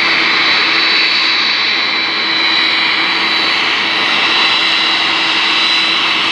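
Jet aircraft engines running steadily: a constant rush with a high whine held at one pitch.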